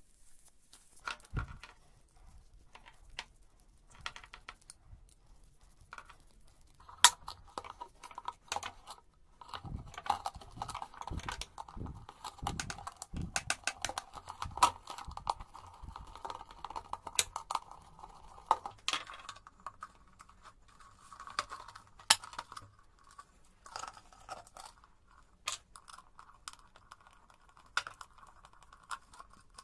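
A screwdriver drives a small screw through a clear plastic tube into the wall of a plastic jar, with many short irregular clicks and scrapes. The screw grinds against the plastic in stretches from about a quarter of the way in.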